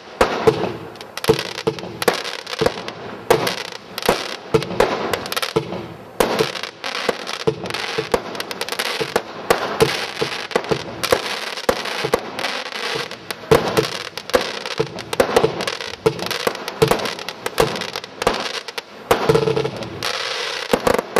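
Consumer firework cake firing: a dense, irregular run of bangs and pops, several a second, with crackling between the reports.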